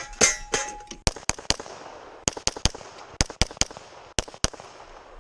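Semi-automatic pistol fire during a timed string: about a dozen or more sharp shots in quick pairs and threes roughly a fifth of a second apart, with brief pauses between groups as the shooter moves from target to target.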